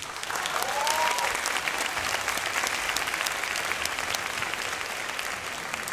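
Audience applauding, with one voice shouting a short rising-and-falling whoop about a second in.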